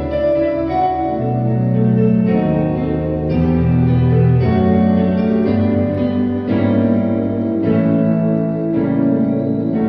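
Yamaha PSR-E463 portable keyboard playing music: held chords over a bass line, with the notes changing about once a second.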